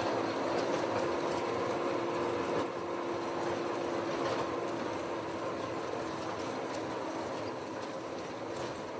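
Vehicle driving on a rough gravel road: steady engine and road noise with a constant whine, and faint knocks and rattles now and then.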